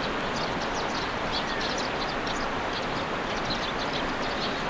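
Steady rushing outdoor noise with many small birds chirping over it in short high notes.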